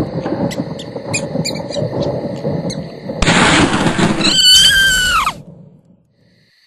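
Cartoon sound effects: a rumbling, clattering noise bed with scattered clicks, then a loud rush topped by a high squeal that slides down in pitch and cuts off sharply, leaving silence.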